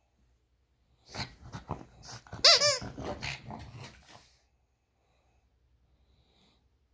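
Excited pug huffing and snorting in short noisy bursts. Around the middle comes one loud wavering squeal, the loudest sound, and everything stops a little after four seconds in.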